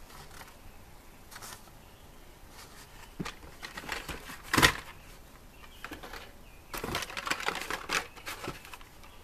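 Carded Hot Wheels cars in plastic blister packs being flipped through by hand in a plastic tub: scattered clicks and clacks of card and plastic knocking together. The loudest knock comes about halfway through, and there is a busier spell of clatter about seven seconds in.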